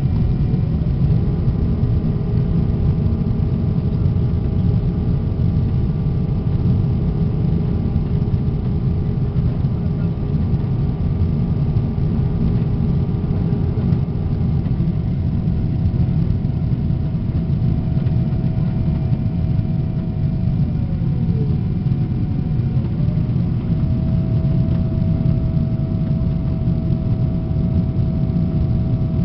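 Steady cabin roar of a Boeing 777-200ER climbing after takeoff, engine and airflow noise heard inside the cabin, with a few faint steady whining tones above it. About twenty seconds in, one tone glides down and then rises back to its pitch.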